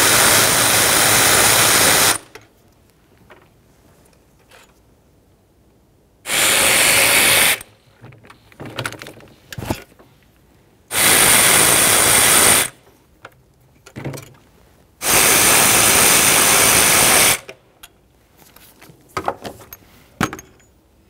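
Power ratchet spinning out the four 10 mm bolts that hold a throttle body to the intake: four bursts of one to two seconds each, with small clicks of the bolts being handled in between.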